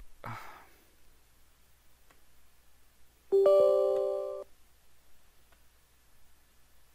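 Windows User Account Control chime as the UAC prompt pops up: one bright multi-tone chime about a second long, starting about three seconds in and cut off suddenly.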